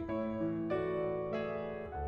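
Background music: a piano-like keyboard playing slow held chords, with a new chord struck roughly every half second or so.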